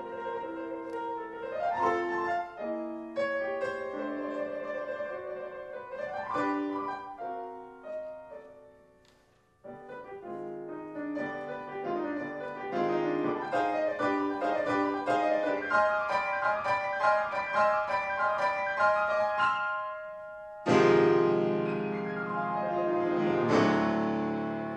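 Concert grand piano playing a solo passage of classical music. The notes die away to a short pause about nine seconds in, then a faster run builds up to loud, full chords near the end.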